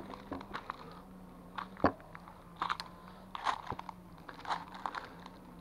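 Footsteps crunching through dry fallen leaves and twigs, irregular steps roughly once a second, with a faint low hum underneath.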